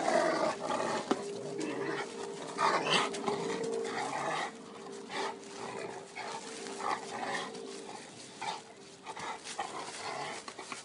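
Rottweiler making play sounds close up as it tussles with a hanging tyre swing, among irregular bursts of rustling dry leaves; louder in the first half.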